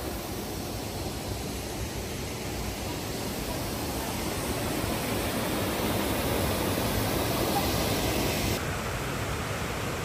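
Steady noise of water pouring over a small weir cascade into a river pool, thinning a little in the upper range near the end.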